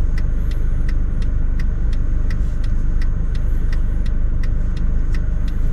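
Car cabin with a steady low engine and road rumble, and the indicator relay ticking evenly about three times a second.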